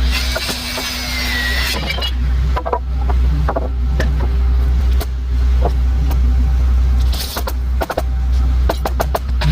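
Framing work on a house wall: scattered sharp knocks and clicks at irregular intervals, with stretches of hiss at the start and about seven seconds in, over a steady low rumble.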